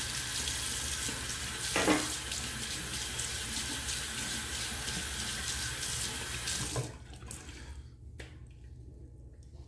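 Bathroom sink tap running steadily while the face is rinsed under it after the first pass of a wet shave, with a brief louder sound about two seconds in. The water is shut off about seven seconds in.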